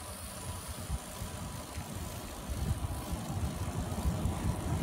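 Wind buffeting the phone's microphone while cycling, a gusty low rumble that grows louder in the second half.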